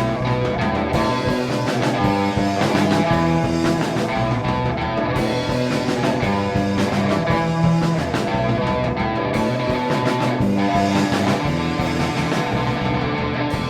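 Rock band playing, electric guitar and drums to the fore, with a steady beat.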